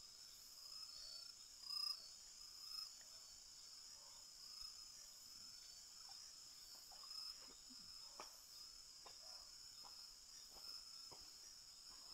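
Faint night chorus of crickets and other insects trilling steadily, with a few soft chirps early on and scattered faint clicks and knocks in the second half.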